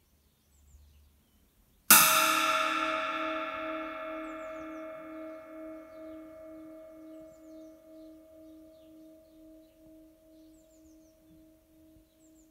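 A 21½-inch 1970s Wuhan China-type cymbal struck once about two seconds in, then ringing out in a long fading shimmer. Its low tones waver and pulse slowly as the ring dies away.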